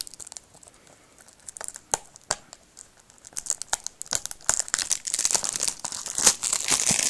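Cellophane shrink-wrap on a DVD case being slit with a knife and torn off, crinkling. There are a few sharp ticks at first, then steady crinkling and tearing from about three seconds in, growing louder near the end.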